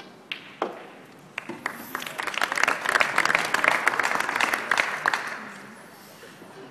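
Snooker balls clicked together by a cue shot, a few sharp clicks in the first second and a half, then a small audience applauding for about four seconds, dying away near the end.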